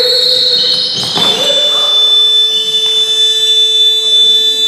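Sports-hall scoreboard buzzer sounding one long steady blare that cuts in suddenly and holds on, its tone shifting slightly about a second in; a game-stopping horn, typical of the end of a period such as the first half.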